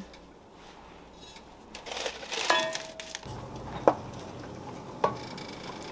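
Kitchen clatter of metal cookware: the oven rack being pushed in and the oven shut on a cast-iron Dutch oven, with a short metallic ring, then a wooden spoon stirring in a stainless steel pot and knocking sharply against it twice.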